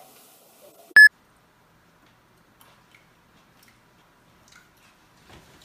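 A single short, loud electronic beep about a second in, followed by near silence with a few faint small sounds.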